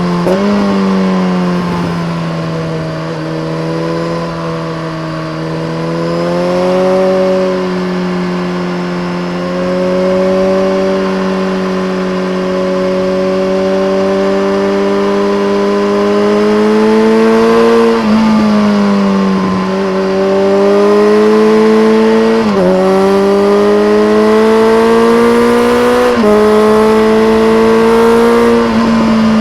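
BMW K1300R's inline-four engine through a full Akrapovic race exhaust fitted with a dB killer, pulling steadily under throttle. Near the end its pitch climbs, drops sharply and climbs again three times as the rider upshifts.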